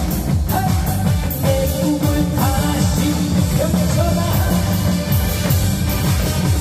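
Upbeat backing music with a steady drum beat and a melody line, played loud.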